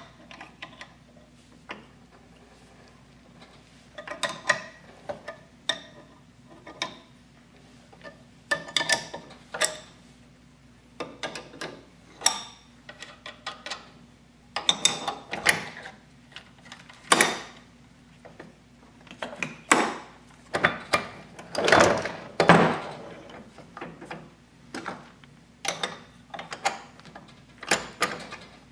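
Irregular metallic clicks, clanks and knocks of hand tools and engine parts being handled during a two-stroke dirt bike engine rebuild, louder and busier about two-thirds of the way through.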